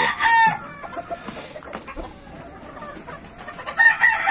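Game roosters crowing: one crow trails off about half a second in and another begins near the end, with quieter fowl sounds between.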